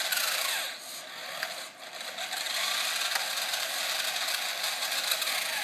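Electric drive motor and gears of a 1993 Tyco FX-4 RC car running steadily, powered by a 9-volt battery that gives too little juice for the car to drive properly. It drops off briefly twice, about one and two seconds in.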